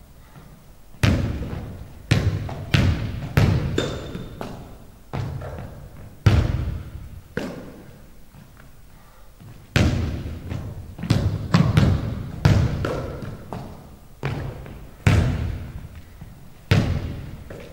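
A basketball bouncing on a hardwood gym floor, each bounce a sharp thud that echoes around a large empty hall, coming irregularly at about one a second.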